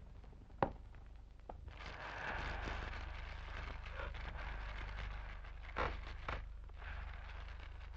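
Dry reeds and sticks rustling and snapping as a small fire is kindled, with a faint crackling hiss from about two seconds in and a few sharp snaps.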